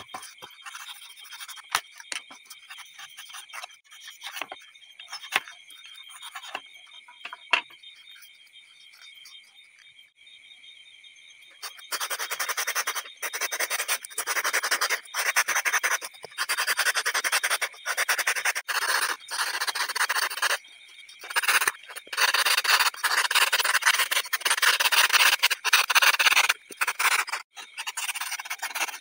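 Knife blade trimming styrofoam with light crackling scratches, then, about twelve seconds in, a flat metal blade scraping the foam in long, loud, rasping strokes that go on in quick succession as the pot shape is smoothed.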